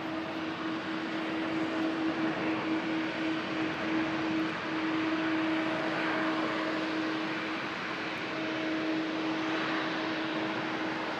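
Jet engines of a Boeing 767-300ER airliner rolling out on the runway just after touchdown: a steady rushing noise with a low hum under it, growing louder over the first few seconds and then holding.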